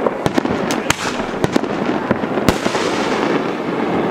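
Consumer fireworks going off: a string of sharp bangs and pops, the loudest about two and a half seconds in.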